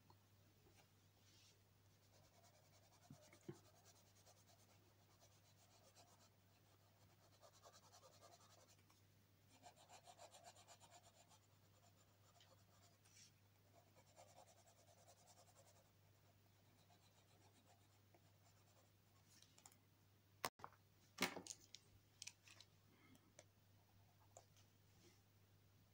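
Faint scratching and rubbing of a marker and crayon on paper while colouring in a drawing, in separate stretches of strokes. Two sharp clicks come about twenty seconds in.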